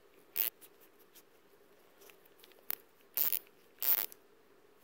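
A socket wrench turning the screw of a worm-drive hose clamp to loosen it. The clamp is squeezing a new input-shaft sealing ring on a 4L60-E transmission back down to size. Four short rasping bursts: one near the start, a brief click in the middle, and two louder ones near the end.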